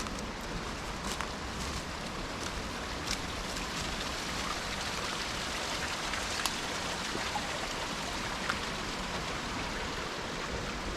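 Mountain stream rushing steadily in the gorge, with a few faint sharp clicks scattered through it.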